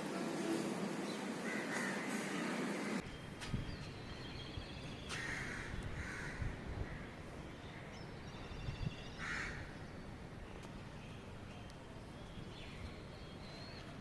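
Crows cawing a few times: two calls in quick succession, then another a few seconds later, with fainter chirps in between. Before that, a steady rushing noise cuts off suddenly about three seconds in.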